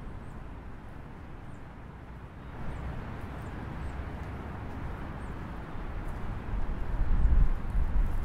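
Strong wind rushing through trees and buffeting the microphone. It builds about a third of the way in and turns into a heavy low rumble near the end. Faint high chirps come now and then.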